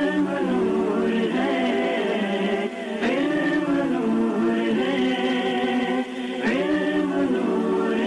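Background music of choir-like voices singing held notes over a steady low drone, a new phrase swelling in about every three seconds.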